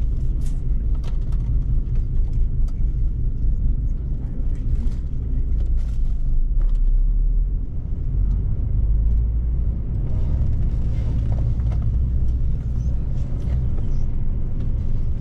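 Double-decker coach's diesel engine running with a steady low rumble as the coach drives off, with a few short clicks and rattles over it.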